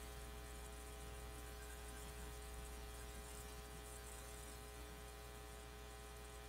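Faint, steady electrical hum with a buzzy edge, unchanging throughout; no brush or other handling sounds stand out above it.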